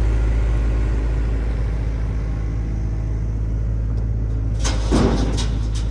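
Excavator diesel engine running at a steady speed. From about two-thirds of the way in there is a run of clanks and knocks.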